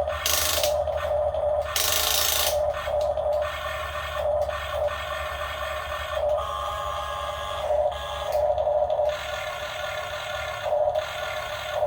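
RC model excavator's motors and gearing running with a whine that swells and fades as the machine works, over a low hum, with two short noisy bursts in the first three seconds.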